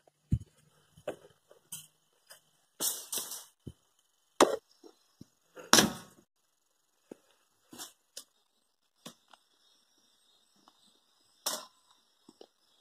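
Irregular knocks, thumps and short rustles from handling the wire grill racks and the camera, the loudest thump about halfway through. Faint steady insect trilling runs behind.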